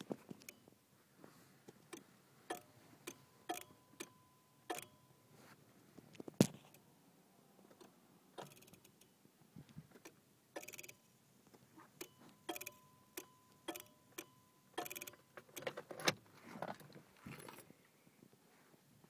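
1991 Honda Civic's ignition switched on again and again with no crank: sharp, irregular clicks from the main relay and key switch, and the key ring jangling, which the owner takes for a starting fault around the main relay. A steady high tone sounds twice, each time for two or three seconds.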